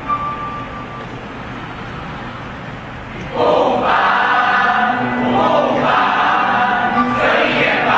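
Mixed choir of boys and girls singing. A phrase dies away into a softer stretch, then the full choir comes back in loudly about three and a half seconds in.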